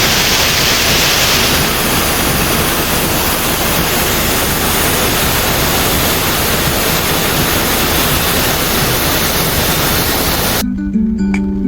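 Loud, steady rush of fast-flowing water, cutting off suddenly near the end as guitar music comes in.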